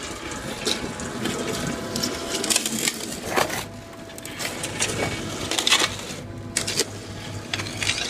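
A 450 mm hydraulic earth auger with rock teeth boring into clay and shale under a cut concrete slab. It makes irregular gritty crunching with sharp cracks of breaking rock over the steady hum of the machine driving it.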